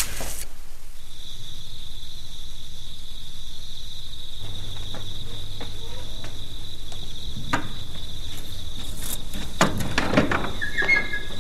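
Crickets trilling steadily at a high pitch, starting about a second in, with a few soft knocks near the end.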